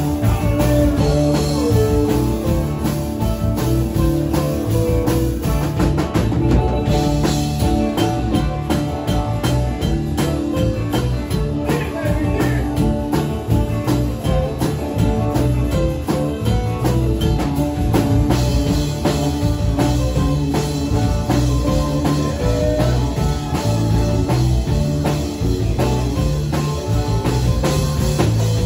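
Live country-rock band playing, with electric guitar, bass and a drum kit keeping a steady beat.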